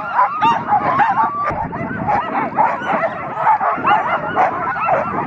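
A team of harnessed sled dogs barking and yipping together in a dense, overlapping chorus, with no let-up. It is the barking that starts up as soon as the sled stops, the dogs eager to run again.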